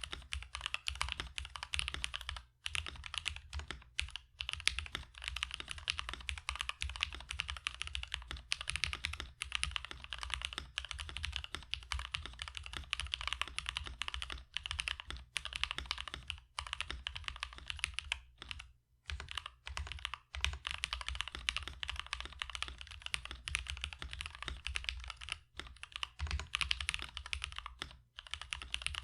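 Rapid typing on a mechanical keyboard with Jwick Yellow Pro linear switches: 65 g, factory-lubed, with polycarbonate top housings and nylon bottom housings. The keys make a fast, steady run of clacky keystrokes with a few short pauses.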